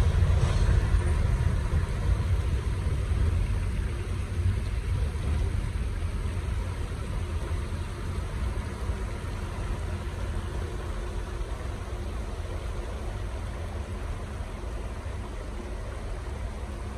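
Two EMD SW1500 diesel switcher locomotives rumbling low as the train moves away, the sound fading steadily, over the steady flow of a shallow river over rocks.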